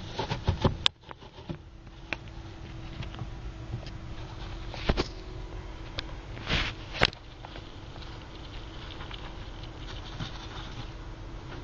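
A gerbil scrabbling and picking at a piece of orange: light scratching and tapping, a quick cluster of taps in the first second and a few more around five to seven seconds in. A faint steady hum runs underneath.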